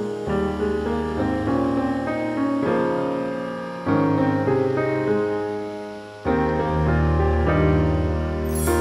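Piano music laid over the video, with sustained chords and new chords struck about four and six seconds in.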